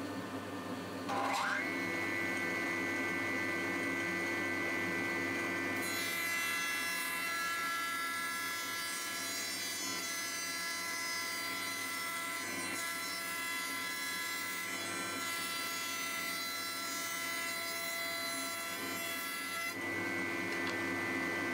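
Warrior 0401F spindle moulder's motor spinning up about a second in to a steady high whine at around 10,000 rpm. From about six seconds until just before the end, the end-mill cutter machines a wooden board fed along the fence, adding a harsher cutting noise. The cutting then stops and the spindle runs free again.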